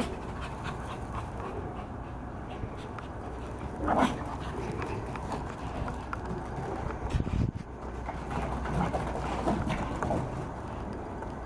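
Small dogs playing off leash, with a short yap from one of them about four seconds in, the loudest sound, and a few smaller yelps and scuffles later, over a steady low background.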